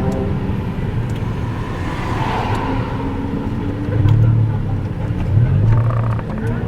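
Toyota 86 / Subaru BRZ's flat-four engine running as the car drives, a steady drone that grows louder and deeper for a stretch about four seconds in.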